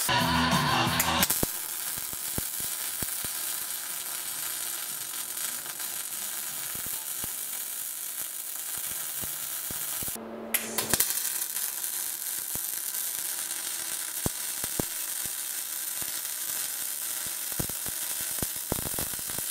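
MIG welding on steel plate: a steady crackling sizzle from the arc, with frequent sharp spatter pops. The arc stops briefly about ten seconds in, then the crackle resumes.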